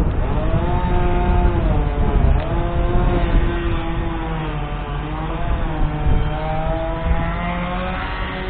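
Chainsaw running at high revs, its pitch sagging and recovering several times under the load of the cut, with a steadier lower engine drone underneath.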